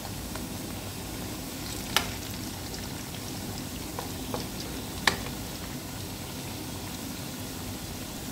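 Banana slices frying in hot oil in a nonstick wok: a steady sizzle, with two sharp clicks about two and five seconds in.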